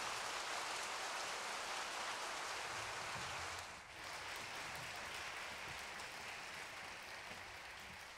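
Audience applauding, a steady patter of many hands that slowly dies down.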